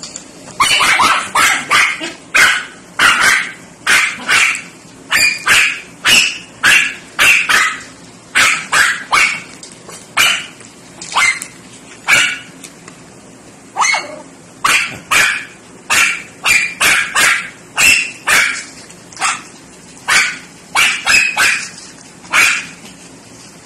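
A dog barking over and over in short, sharp barks, often two or three in quick succession with brief pauses between.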